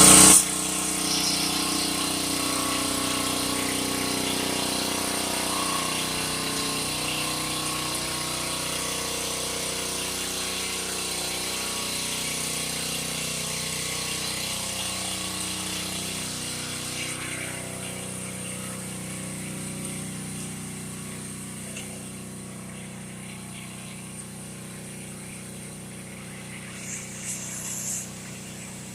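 Heavy rain hissing steadily over a steady motor hum. The high part of the rain noise drops away about two-thirds of the way through, and a brief higher hiss comes near the end.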